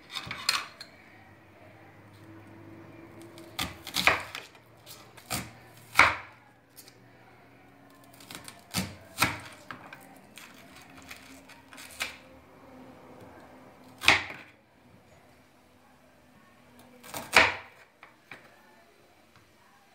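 A crinkle-cut slicer is pushed through a peeled onion onto a wooden cutting board. Each cut ends in a sharp knock, about a dozen in all, coming at uneven gaps of a second or more.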